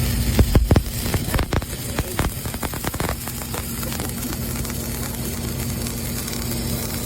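MIG welder arc running with an even crackling hiss, after a few sharp knocks in the first three seconds. A steady engine hum runs underneath.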